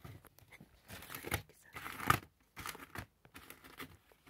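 Paper crinkling and rustling in irregular bursts inside a drawer, stirred by a Siamese cat hidden among the contents. The loudest burst comes about two seconds in.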